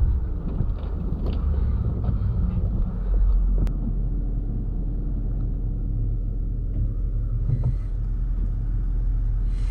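Steady low rumble heard inside an SUV's cabin as it drives slowly over a snow-covered track, engine and tyres on snow. A single sharp click comes about a third of the way in.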